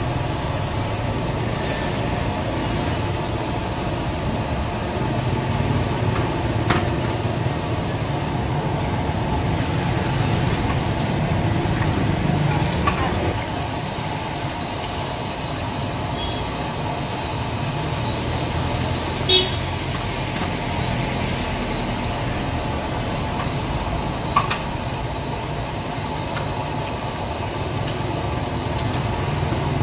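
Street traffic rumbling steadily, with battered food sizzling and bubbling in a large deep-fat fryer. There are a few light clicks, and a short horn toot about two-thirds of the way through.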